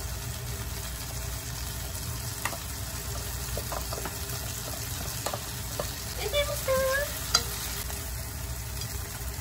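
Cut tomatoes and leftover mapo tofu sizzling steadily in a frying pan, with small taps and scrapes as wooden chopsticks stir them.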